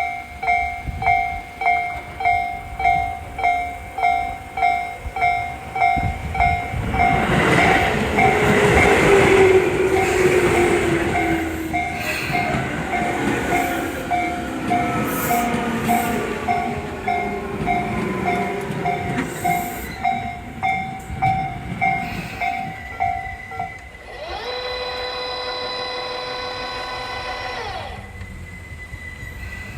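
A Japanese electronic level-crossing bell rings about twice a second while a Tobu Urban Park Line electric train (set 11632F) rolls in. The train's wheel and running noise swells, loudest around nine seconds, with a whine falling in pitch as it brakes. The bell stops a little after twenty seconds, and a steady machine tone follows for about four seconds near the end.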